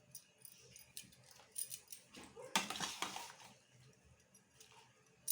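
Kitchen utensils being handled: scattered light clicks and knocks, with a louder scraping, rustling stretch about two and a half seconds in.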